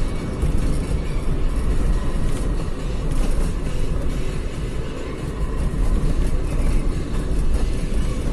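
Steady road and engine rumble of a moving vehicle cruising along a highway, heavy in the low end.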